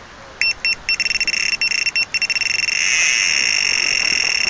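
Electronic bite alarm on a fishing rod going off, signalling a fish taking the bait. It gives a few short high-pitched beeps, then a continuous fluttering tone as the line keeps running.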